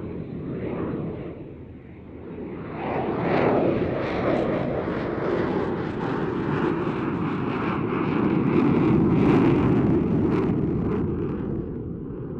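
Eurofighter Typhoon's twin Eurojet EJ200 turbofans swelling to full power in afterburner about three seconds in: a loud jet rumble with a ragged crackle, easing slightly near the end.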